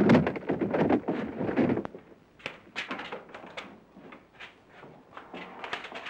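A loud burst of thumps in the first second, then scattered lighter knocks and clatter around a wooden apartment door as it is knocked on and opened.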